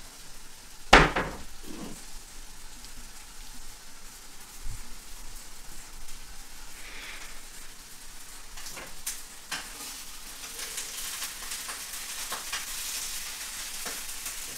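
Felt-tip marker scratching across flipchart paper in short strokes as lines and words are written, with one sharp click about a second in.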